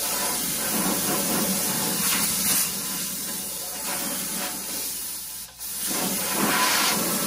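Compressed-air blow gun hissing in uneven blasts as it blows dust out of an engine block, breaking off briefly about five and a half seconds in.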